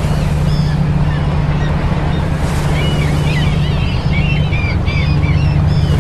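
Seaside wave ambience: a steady wash of surf-like noise over a low hum, with a scatter of short high chirps, busiest between about two and a half and four seconds in.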